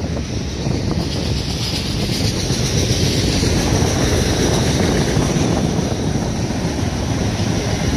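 Freight train cars rolling steadily past at close range: the continuous noise of steel wheels on the rails as double-stack container well cars and autorack cars go by.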